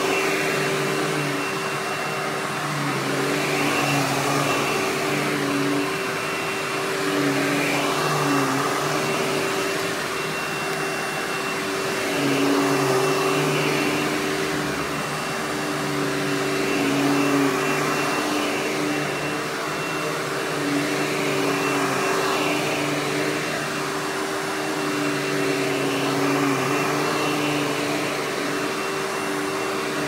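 Hoover Windtunnel Anniversary Edition bagless upright vacuum (U5786-900) with a 12 amp motor, running with a loud, whiny, high-pitched motor sound. Its sound swells and fades every four to five seconds as it works.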